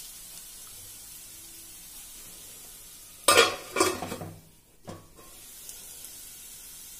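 Okra, onion and spices sizzling gently in a kadhai over a low flame. A little past halfway a stainless steel lid clatters against the pan several times, then after a short gap there is one more knock before the sizzling goes on.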